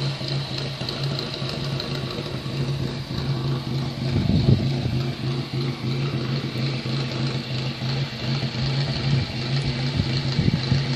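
Coventry Climax engine running steadily, an even low hum with a faint high whine above it. A brief low bump about four and a half seconds in.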